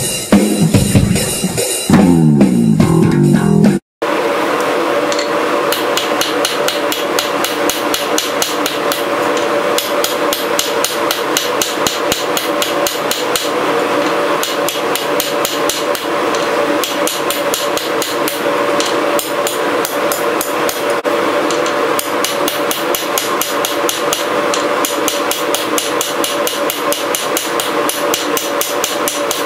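A hand hammer strikes red-hot steel on an anvil in a steady, continuous rhythm, with the anvil ringing under the blows. Intro music plays for the first few seconds before the hammering starts.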